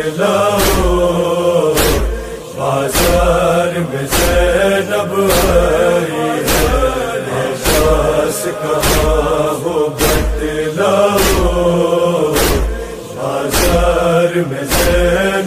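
Noha interlude: a wordless vocal chorus chanting in long held notes over a heavy, regular thumping beat that comes about once a second, often as a quick double thump.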